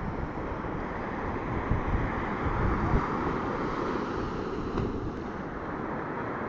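Sea waves washing onto the shore, with wind buffeting the microphone in heavy low gusts. The sound swells about two to three seconds in.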